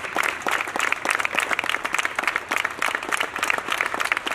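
Crowd applauding: many people clapping their hands continuously.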